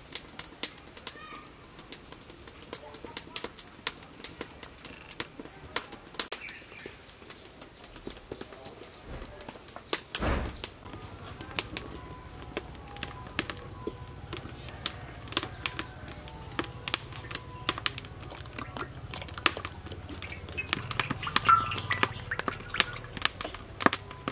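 Sharp, irregular clicks and crackles throughout. About ten seconds in there is a thump, and after it a low, steady rumble joins the crackling: a wood fire burning in a clay stove.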